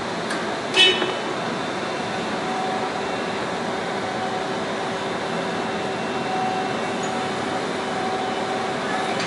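Forklift running: a steady mechanical drone with a faint even hum, and a single sharp clank about a second in.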